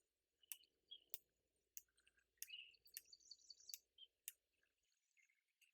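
Faint, short bird chirps and sharp clicks, roughly one every half second to second, with a brief high trill about three seconds in.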